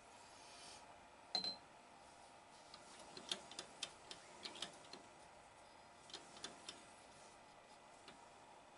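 Scattered light clicks and ticks of metal swarf and hand work as a lathe test bar is brushed clean, with a brief brushing hiss at the start and one sharper click about one and a half seconds in.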